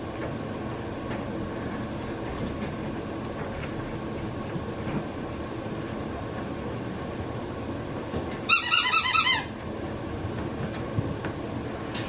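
A dog's squeaky toy squeaked rapidly, about seven short high-pitched squeaks in one second, as a puppy chews it, over steady low room noise.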